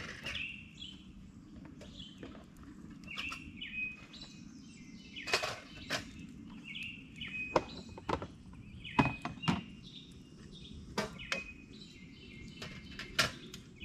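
Birds chirping over and over, short repeated calls, with sharp clicks and knocks of camping gear being handled; the loudest knocks come in the second half.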